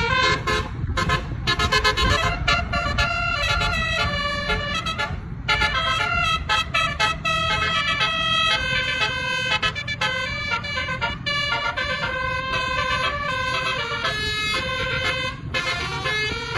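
Basuri telolet multi-tone bus horn playing a fast tune of short stepped notes, over a low rumble.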